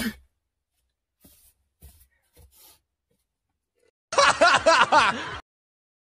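The tail of a person's sneeze right at the start, then a few faint rustles. About four seconds in, a short burst of laughter lasting just over a second, its pitch bouncing up and down over several pulses.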